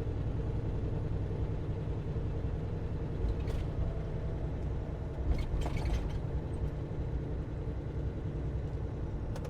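Semi-truck's diesel engine running steadily under a low road rumble while driving. A few brief clicks or knocks come about three and a half and five and a half seconds in.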